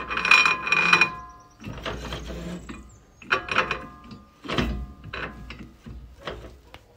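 Front brake disc of a VW Gol G6 being turned over, scraping and squealing against the caliper in a series of strokes, the first the loudest. Something in the caliper seems to be catching on the disc.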